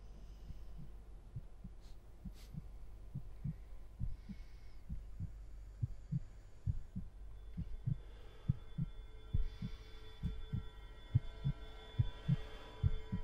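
A heartbeat sound effect, low thuds pulsing about twice a second and growing louder. From about eight seconds in, a steady high drone of several tones rises beneath it.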